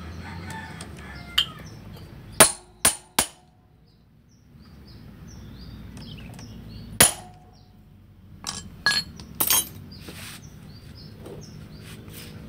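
Sharp metallic clinks and knocks of engine parts and tools being handled and set down: three close together about two and a half seconds in, one near the middle, and a quick cluster about two-thirds of the way through.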